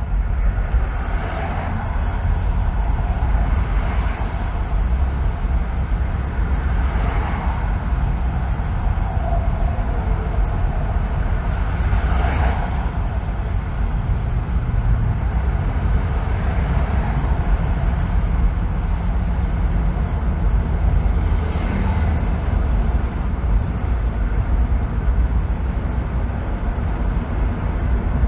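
Car driving on a freeway: a steady, loud low rumble of road and tyre noise, with a few brief swells of higher rushing noise along the way.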